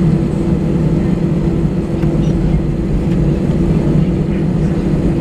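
Cabin noise inside an Airbus A320-family jet airliner taxiing: the engines running at low thrust, a steady rumble with a held low hum.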